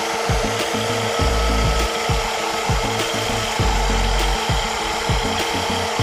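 A toy remote-control excavator's electric motors and gears whirring steadily as it moves its arm and tracks, over background music with a steady beat.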